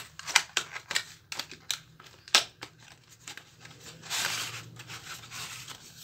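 A cardboard colour-pencil box being handled and opened: a run of light clicks and taps, then a short sliding rustle about four seconds in as the plastic pencil tray is pulled out of the box.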